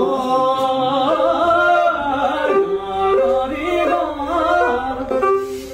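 A man singing a slow melodic line without accompaniment, with long notes that bend and waver. The singing stops near the end.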